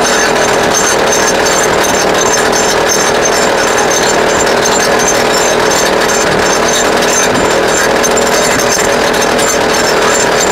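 YN30A petrol rock drill, a single-cylinder two-stroke, running steadily and hammering continuously as it drills into rock.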